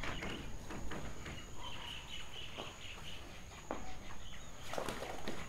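Scattered rustles and knocks of plastic tank-liner sheeting being handled, a denser cluster near the end, over faint bird chirps and a steady high insect whine.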